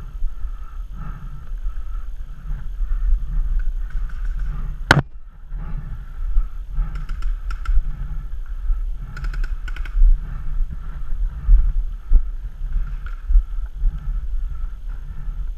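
Wind and handling rumble on a body-worn action camera as the wearer moves, with soft thuds repeating about once a second. A single sharp crack comes about five seconds in.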